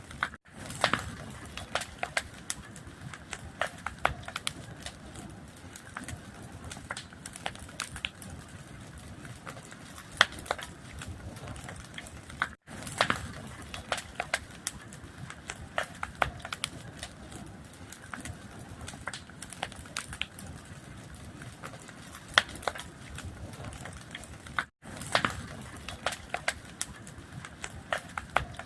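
Fire crackling: wood popping and snapping in irregular sharp cracks over a soft steady hiss. The sound drops out for an instant twice, about twelve seconds apart.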